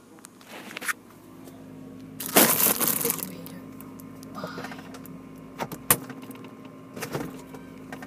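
Handling noise from an iPad being moved and pushed in among objects at close range: a loud scraping rustle about two seconds in and a few sharp clicks and knocks later, over a faint steady hum.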